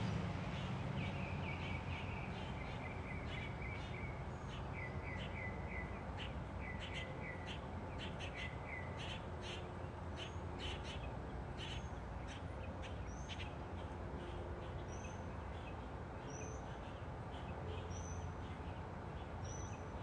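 Several wild birds calling over a steady low rumble: a run of lower falling notes in the first few seconds, harsh rasping calls through the middle, and in the second half a short, high upslurred chirp repeated about every second and a half.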